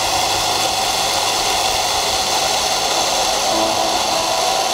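Mepla-mat 3000 boring machine running with a loud, steady noise as its head comes down to bore into a thin OSB panel.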